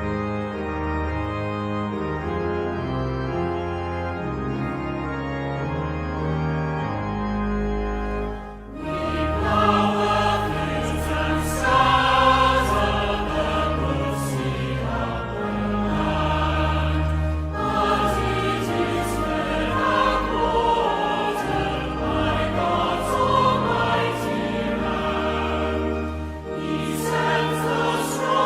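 Church organ playing a hymn introduction in long held chords; about nine seconds in, voices join and sing the hymn with the organ.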